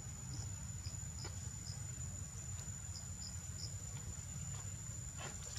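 Insects singing in a steady high-pitched drone, with short high chirps repeating irregularly over a low background rumble.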